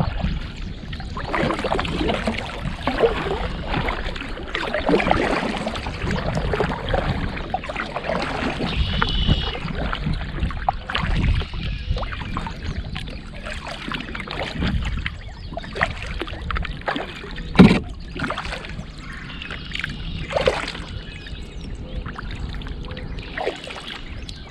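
A kayak being moved through lily pads: irregular water swishes and the pads and stems rustling and scraping along the hull. One sharp knock about two thirds of the way through stands out as the loudest sound.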